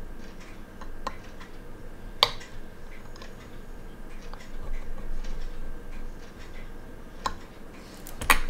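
Small, sharp metal clicks of a fine watchmaker's screwdriver and the movement parts against a metal movement holder. The clicks are few and irregular, the sharpest about two seconds in, with a quick cluster near the end.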